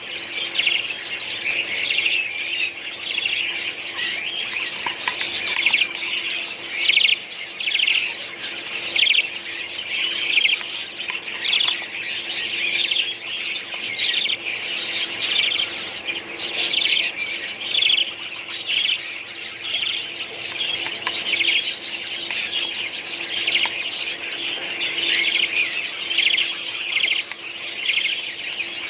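A colony of budgerigars chattering and chirping, many birds calling over one another without pause.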